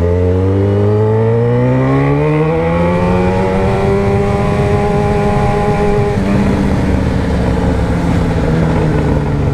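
Yamaha XJ6 inline-four motorcycle engine with a sport exhaust, heard from the bike while riding. It climbs in pitch as it accelerates for about three seconds and holds steady. About six seconds in the pitch drops in a step, as in an upshift, then eases off slowly.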